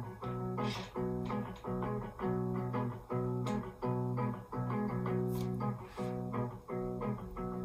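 Instrumental guitar music: strummed guitar chords repeating in a steady rhythm.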